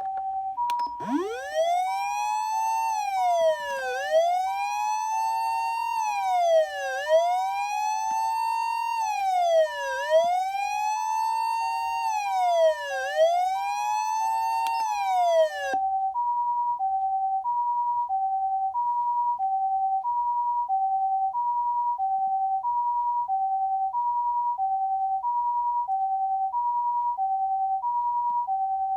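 Osaka Siren OPS-5101V-Q ambulance siren amplifier sounding the Japanese ambulance hi-lo two-tone (pee-poh). For the first half an electronic wail sweeps up and down over it, about once every three seconds. The wail stops about halfway through, and the two-tone carries on alone, a high and a low note about every second and a quarter.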